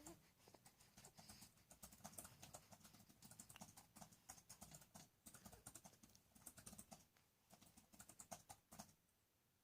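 Near silence with faint, irregular clicks and rustles that thin out near the end.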